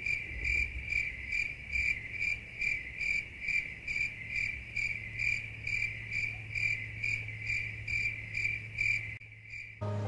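Crickets chirping in a steady, even rhythm of about two chirps a second: the stock crickets sound effect used as the comic cue for an audience's dead silence.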